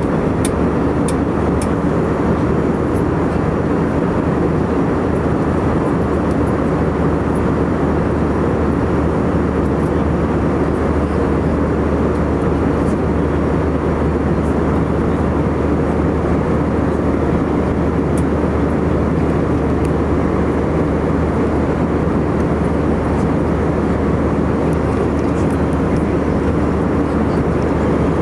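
Steady cabin noise of an Airbus A319-115 with its CFM56 engines running: an even rush of air with a low drone, holding level throughout.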